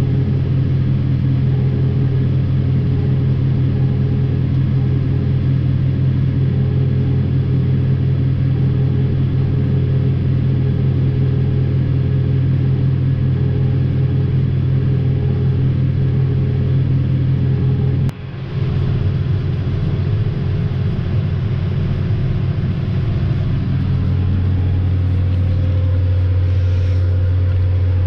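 Tractor engine running steadily, heard from inside the cab as a deep drone. About 18 seconds in it breaks off briefly and comes back with a slightly different tone.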